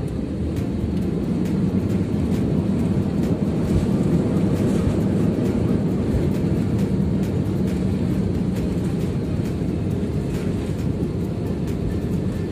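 Steady rumble of an airliner cabin as the plane rolls along the runway after landing, with a low hum running under it.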